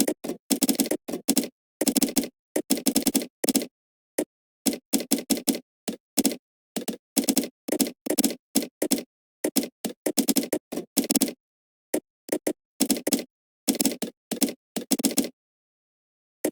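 Typing on a computer keyboard: rapid runs of keystrokes broken by short pauses, with a longer pause of about a second near the end.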